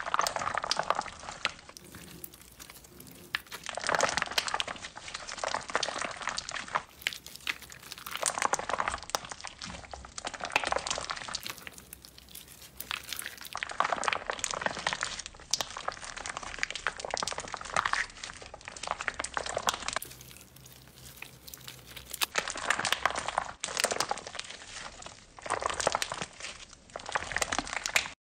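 Clear slime packed with coloured gel beads being squeezed and kneaded by hand: dense crackling and squishing that swells in waves every few seconds.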